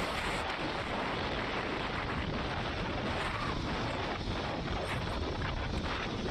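Motorcycle ridden fast on an open road: a steady rush of wind on the microphone over the bike's engine and road noise.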